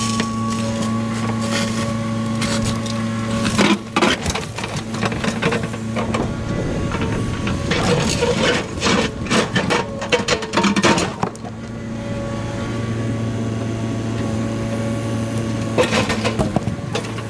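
Kubota KX080 excavator's diesel engine running steadily, with bouts of crunching and knocking from the bucket working debris about four seconds in, through the middle stretch, and again near the end.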